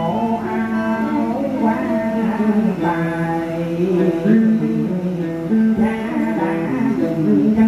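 Background music: a song with a singing voice over plucked guitar, held notes gliding between pitches.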